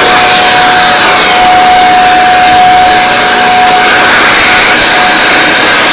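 Pressure washer running and spraying water in a steady hiss, with a steady whine from its motor that drops out briefly a few seconds in.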